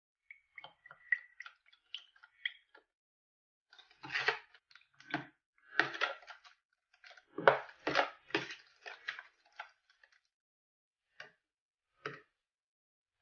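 Clear-glue slime being mixed and worked by hand: irregular sticky clicking and squishing. It is sparse at first, busier and louder in the middle, then trails off to a few single clicks.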